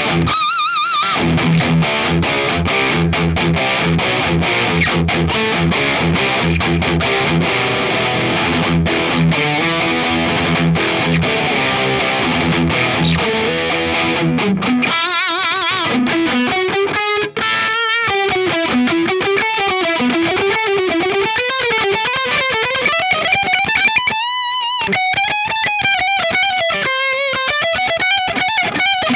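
Jackson Performer PS-2 electric guitar played through a Guitar Rig 5 metal distortion tone. It plays a fast low riff of short repeated notes, then, about halfway through, switches to a single-note lead line with wide vibrato and slides.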